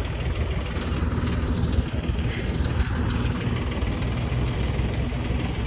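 Steady roar of aircraft engines running, with a faint steady hum under it.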